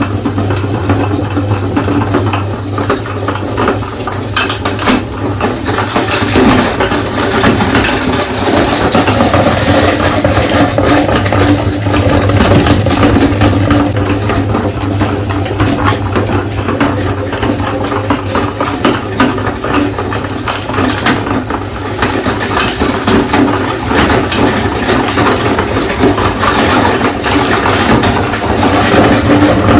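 Electric meat grinder running with a steady motor hum while hard candy lollipops crack and rattle through it, a dense, continuous clatter of clicks.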